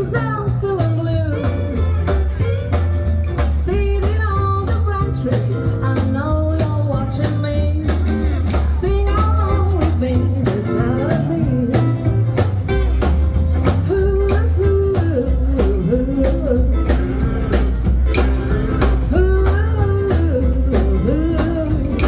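Live band playing a rock-and-roll/blues number, with guitar, a steady bass line and a regular drum beat, and a singer's voice over it.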